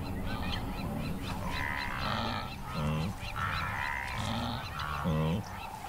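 Wild animals calling: a series of honking calls, with two short, low calls about three and five seconds in.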